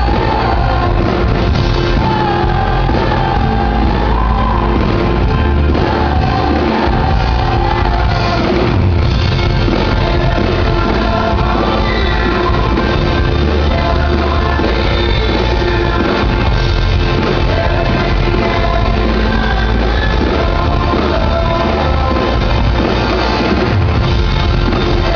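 Pop-rock band playing live: a male lead singer over acoustic and electric guitars, keyboards and drums, heard from within the audience.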